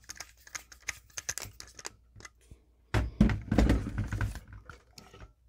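Screwdriver tightening the ground terminal screw on a light switch, with small scraping clicks of metal on metal, then louder knocking and rustling about three seconds in as the switch and the metal electrical box are handled.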